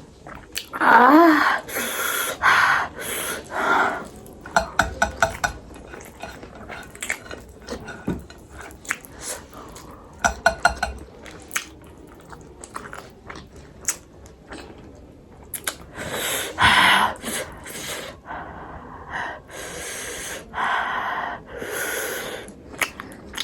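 A person eating through the burn of a bitten chili: sharp gasping, hissing breaths and a brief whimpering sound, between small clicks of dishes and chewing.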